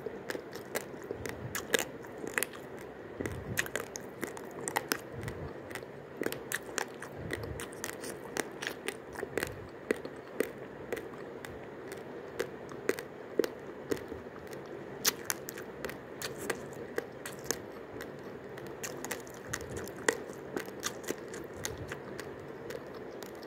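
Raw, uncooked long-grain basmati rice being chewed: a fast, irregular run of crisp crunches and cracks.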